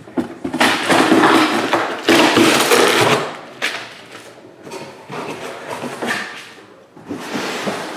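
Packaging being torn open and handled: a run of loud crinkling, ripping noises, heaviest over the first three seconds, then shorter bursts of rustling.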